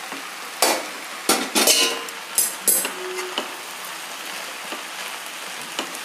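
Vegetables and rice sizzling steadily in a hot stainless steel pan. A metal spoon clinks and scrapes against the steel pan and bowl several times in the first three seconds, then a few light ticks follow.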